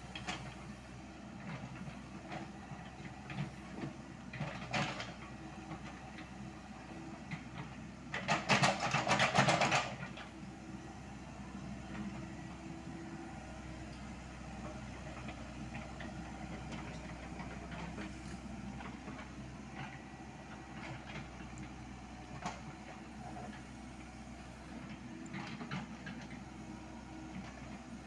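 Komatsu PC78US mini excavator's diesel engine running steadily. About eight seconds in, a loud burst of scraping and rattling lasting about two seconds, with smaller clanks scattered through the rest.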